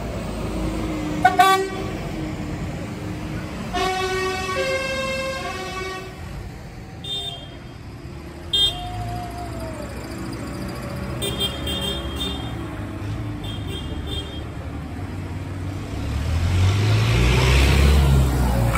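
Tractor horns tooting as tractors drive past: a short blast, then a longer held blast a few seconds in, followed by several shorter, higher toots. Near the end a tractor engine grows louder as it passes close.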